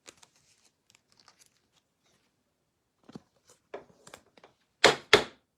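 Trading-card packaging being crinkled and torn open, with faint rustling and then two loud, quick rips about five seconds in.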